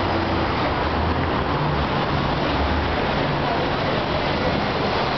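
Busy city street noise: steady road traffic running past, mixed with the chatter of a crowd of people.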